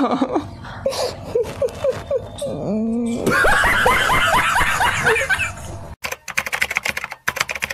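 Laughter in short, rhythmic bursts, growing denser and higher-pitched about three seconds in. Near the end comes a rapid run of sharp clicks.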